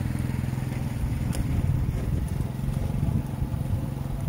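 A small engine idling steadily in a low, even hum, with a few faint clicks over it.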